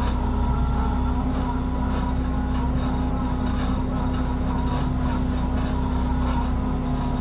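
Fishing boat's engine and deck machinery running steadily, a constant low drone with a steady hum.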